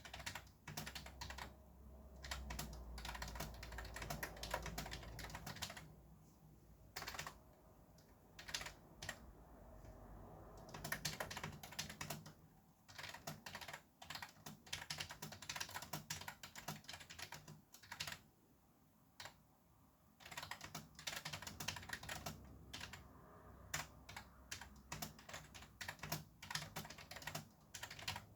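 Fast typing on a computer keyboard: dense runs of key clicks broken by brief pauses.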